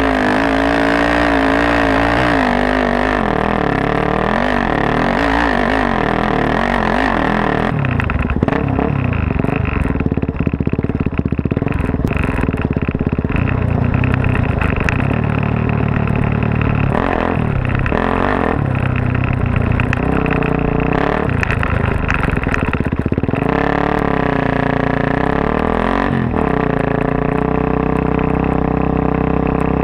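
Suzuki DR-Z400S single-cylinder four-stroke, bored out to 440 with a full Yoshimura off-road exhaust, being ridden off-road. The engine note repeatedly rises and falls as the throttle is worked and the rider shifts gears.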